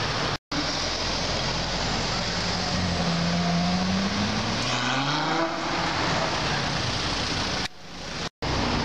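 Ferrari FF's V12 engine accelerating past, its note rising and then fading, over steady street traffic noise. The sound cuts out briefly twice, near the start and near the end.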